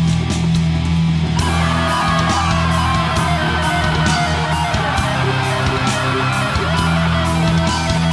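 Heavy rock music with electric guitar, sustained bass notes and a steady drum beat; a higher guitar melody comes in about a second and a half in.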